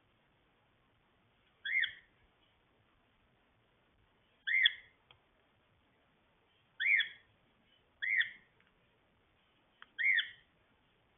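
Cockatiel giving five short chirped calls a couple of seconds apart, each sweeping up and then down in pitch.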